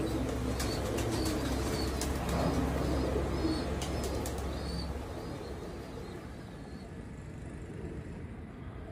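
Pigeons in a loft, with wing flaps and a few short high chirps over a low steady hum. The hum drops away about five seconds in, leaving quieter background.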